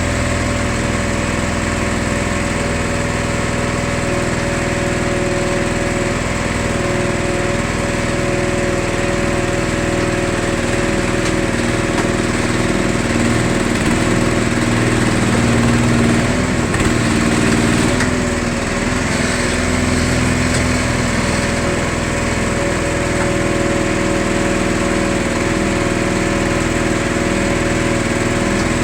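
Small engine running the baler's hydraulics, a steady drone throughout. A little past the middle it grows slightly louder for a few seconds and its pitch wavers, then settles back.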